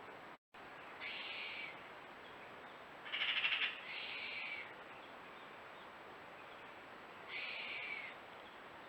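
Owl calls: four harsh, screechy calls of under a second each, the loudest about three seconds in, over a faint steady hiss. The sound cuts out completely for a moment just before the first call.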